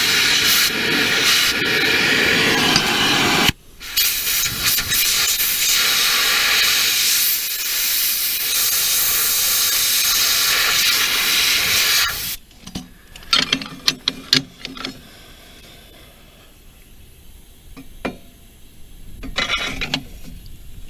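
Gas torch hissing steadily while heating a seized blade bolt on a mower-deck spindle, with a brief break a few seconds in. It shuts off about twelve seconds in, followed by a few scattered metal clinks of tools on the spindle.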